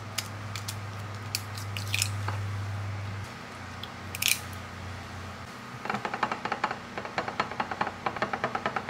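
Eggs being cracked against the rim of a ceramic bowl, with a sharp crack about four seconds in, then the eggs beaten with chopsticks from about six seconds in, the sticks clicking against the bowl several times a second.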